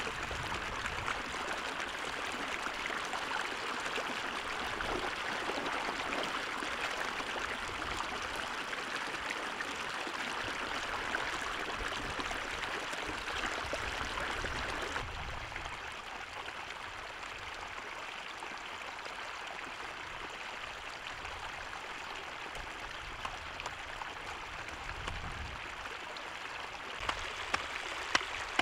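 Floodwater pouring steadily over a shallow bank into a pool: a continuous rush and splash of running water that becomes a little quieter about halfway through. A few light knocks come near the end.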